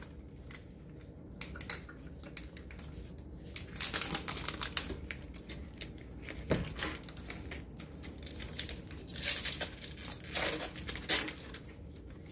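Foil Pokémon booster pack being crinkled and torn open: irregular crisp crackles and clicks, sparse at first and busier from about four seconds in.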